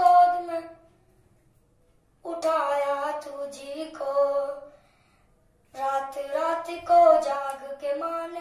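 A boy singing an unaccompanied Urdu naat in a high voice, three sung phrases broken by two pauses of about a second each.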